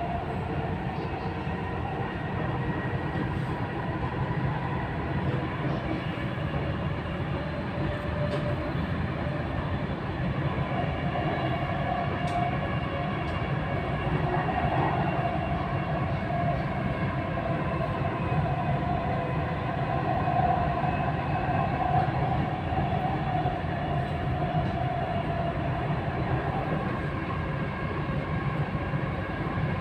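Dubai Metro train running between stations, heard from inside the carriage: a steady rumble of wheels on rail with a faint steady whine over it.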